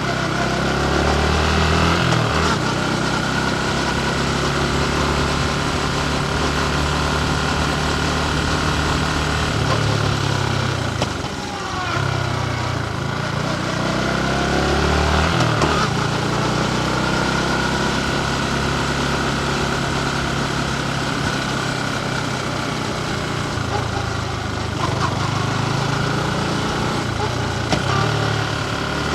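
Yamaha MT15's single-cylinder engine running while riding, its note rising and falling several times with throttle and gear changes, over wind and road noise.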